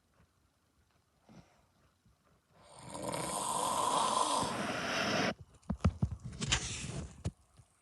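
A man snoring. After a pause of about two and a half seconds comes one long snore, then a fluttering run of clicks as it ends.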